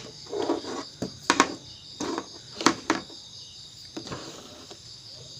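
A few sharp clicks and taps, in pairs about a second apart, from batteries and multimeter test probes being handled on a hard surface. Steady cricket chirring runs underneath.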